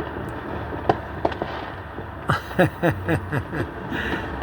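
Neighborhood fireworks going off: a couple of sharp pops about a second in, then a quick run of bangs and crackles from about two to nearly four seconds in.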